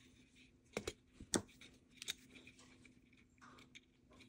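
Small hand tools clicking and snipping on wire: a few short, sharp snips, some in quick pairs, the loudest about a second and a half in.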